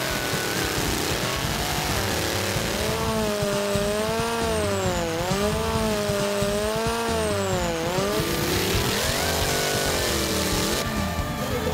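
Hot saws, custom racing chainsaws with big multi-pipe engines, running at high revs while cutting through a large log, the engine pitch rising and falling over and over as it loads in the cut. The sound changes abruptly a few times, as one cut gives way to another.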